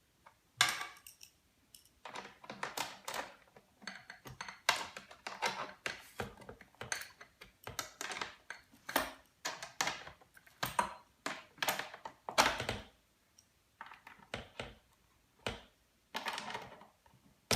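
Quick, irregular clicks and scrapes of a hand tool working bolts into the back of a tumble dryer, in short clusters with a few brief pauses.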